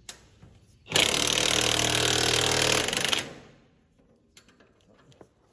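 Power impact wrench running a bolt in one loud burst of about two seconds, starting about a second in and cutting off suddenly, followed by a few faint clicks.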